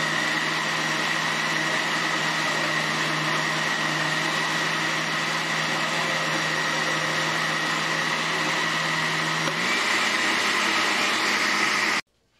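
Electric blender running steadily, blending strawberries and bananas in water. Its hum rises a little in pitch nearly ten seconds in, and it cuts off suddenly near the end.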